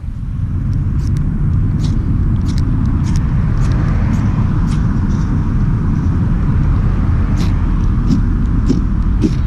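Repeated short, sharp scrapes of a striker on a magnesium fire starter rod, about a dozen at an uneven pace, throwing sparks at tinder. Under them runs a steady, heavy low rumble that is louder than the scrapes.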